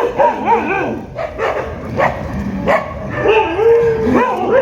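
Street dogs whining and yipping in high, wavering tones, with a few short barks and one longer drawn-out whine a little past the middle.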